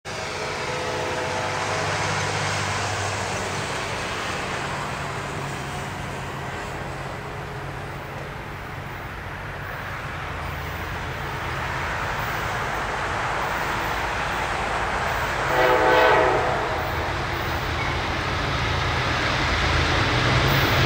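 Approaching freight train led by GE diesel locomotives: a steady engine drone and rumble growing louder, with the locomotive horn sounding faintly at the start and again in a short, louder blast about sixteen seconds in.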